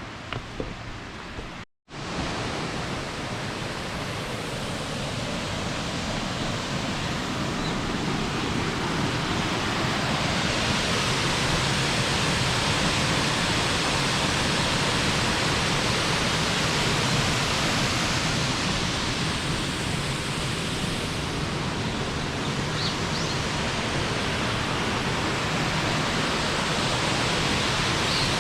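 Steady rush of a cascading waterfall. It swells over the first several seconds and then holds even.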